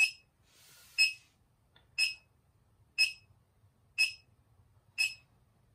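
Electronic meter alarm beeping: one short, high beep each second, evenly spaced. A faint hiss comes just after the first beep.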